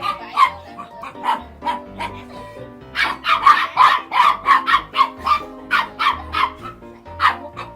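A dog barking repeatedly, with a few separate barks and then a quick run of barks from about three seconds in, over background music.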